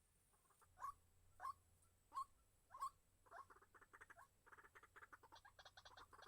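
Faint calls of a white-breasted waterhen: four separate sharp notes about two-thirds of a second apart, then a fast run of rapid chattering notes from about halfway in.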